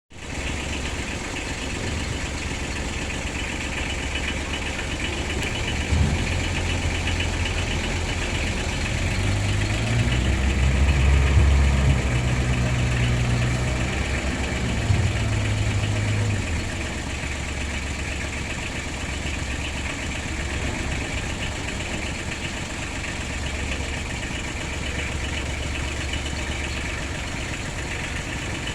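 Engines of several small kobota palm-fruit haulers idling together in a queue. One engine runs louder and rises and falls in pitch in the middle stretch, then settles back to the steady idle.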